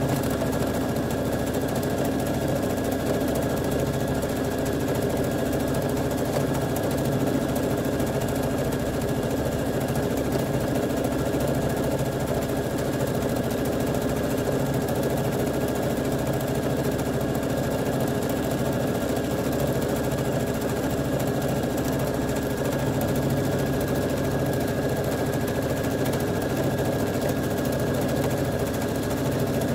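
Electric sewing machine running continuously at a steady speed, stitching through water-soluble film.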